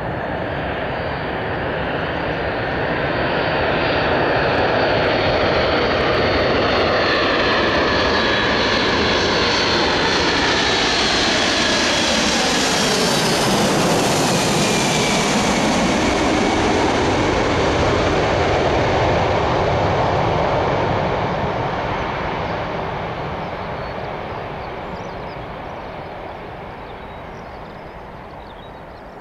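Four jet engines of a Boeing 747-400F freighter on landing approach, passing low overhead: a loud steady jet noise with whining tones that fall in pitch as it goes by, loudest about halfway through, then fading as the aircraft moves away down the runway.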